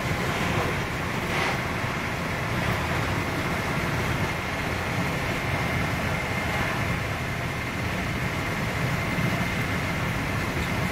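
Steady rumble of a Mark 3 passenger coach running at speed, heard from inside: wheels on the rails with a faint, steady high whine.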